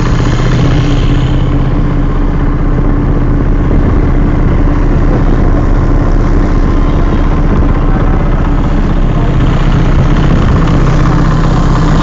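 Motorboat engine running loud and steady at an even speed, with no change in pitch.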